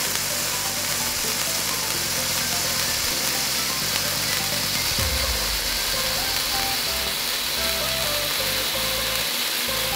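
Several fountain sparklers burning together with a steady spitting hiss, over electronic background music.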